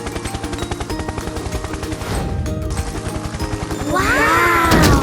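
Cartoon background music over a fast, even ticking rattle. About four seconds in, a louder sound effect made of several tones that sweep up and back down in pitch lasts about a second.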